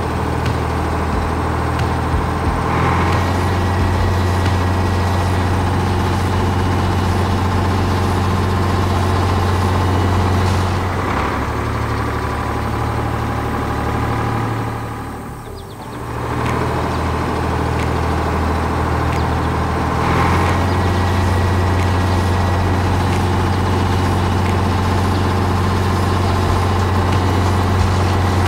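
Tractor engine running steadily with a low hum. Its note shifts slightly about eleven and twenty seconds in, and it briefly drops in level around fifteen seconds.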